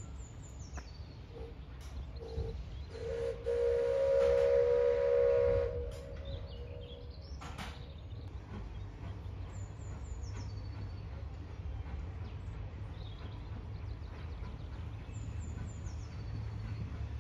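Steam locomotive whistle: two brief toots, then one held blast of about three seconds. After it comes a low, steady rumble of the train, with faint birds chirping.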